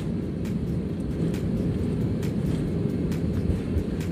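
Airliner cabin noise on the landing roll: a steady low rumble of the wheels on the runway and the engines, with faint ticks every half second or so.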